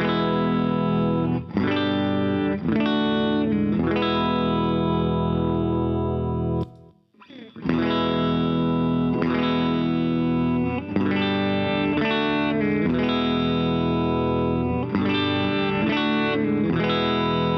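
Les Paul electric guitars played through an amp, both pickups on, volumes backed off to 8 and tones full up, strumming a sequence of ringing chords. About seven seconds in, the playing stops for about a second while the guitar is swapped, and the same chord sequence is then played on a second Les Paul.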